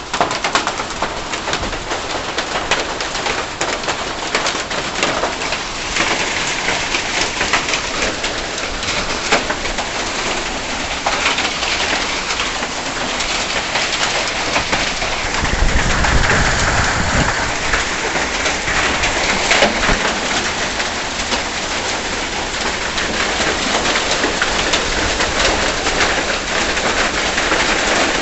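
Hailstones and heavy rain pelting down, a dense, constant clatter of countless small hits, with a low rumble about halfway through.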